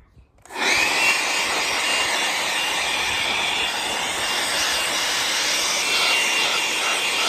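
A handheld electric power tool's motor spins up about half a second in, then runs steadily with a rushing noise and a thin, high whine.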